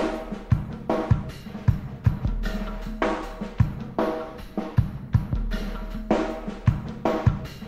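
Rock jam from a cassette demo: a drum kit plays a steady beat of kick, snare and cymbals, about two hits a second, under an electric bass line of held low notes.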